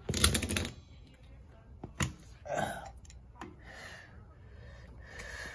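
Metal scooter clutch parts being handled and pressed down on a concrete floor: a short rattling scrape at the start and a single sharp metallic click about two seconds in, with fainter handling noises between.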